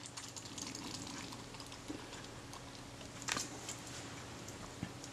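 Faint crackling fizz of CRC Lectra Clean aerosol solvent soaking into old adhesive on a metal camera plate, many tiny ticks over a soft hiss. A single sharper knock comes a little past three seconds in.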